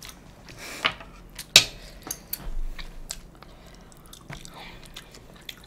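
Close-miked chewing and biting of food, with soft wet mouth sounds and scattered sharp clicks, the loudest about a second and a half in.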